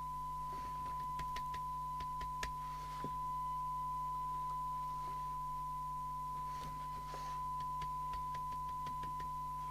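Steady single-pitch test tone from the CB receiver's speaker as it receives an S9 test signal during S-meter adjustment, over a faint mains hum, with a few faint clicks in the first few seconds.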